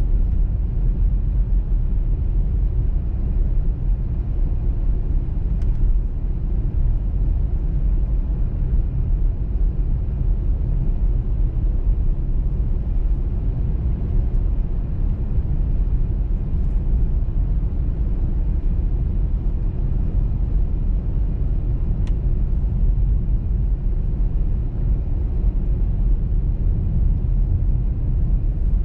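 Car driving at steady speed on a snowy motorway: an even, low road and tyre rumble with the engine underneath, unchanging throughout.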